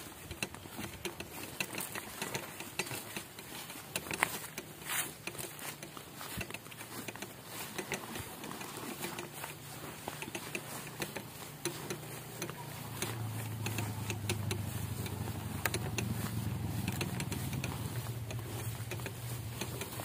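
Footsteps and rustling of people walking through grass and undergrowth, with a low engine drone that comes in and grows louder about two-thirds of the way through.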